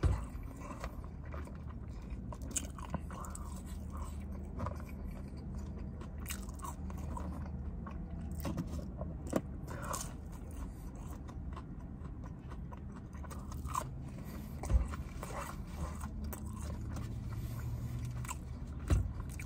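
Close-miked chewing and biting of McDonald's fast food, a chicken nugget among it: many small mouth clicks, with a couple of louder ones near the end, over a faint steady low hum.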